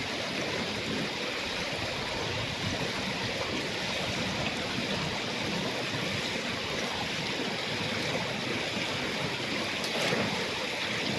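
Steady rush of flowing stream water, with a faint knock about ten seconds in.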